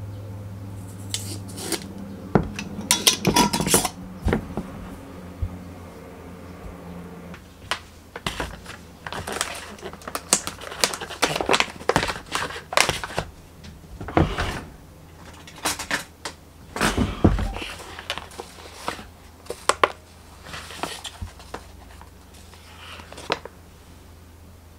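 Spoon and ingredient containers being handled over a stainless steel mixing bowl as sugar and salt are spooned in: irregular clinks, taps and scrapes of utensil on metal and container, with short rustles.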